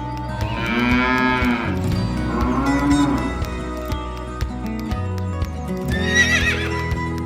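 Background music with farm-animal calls over it: two drawn-out cattle moos in the first half, then a short, high, wavering horse whinny about six seconds in.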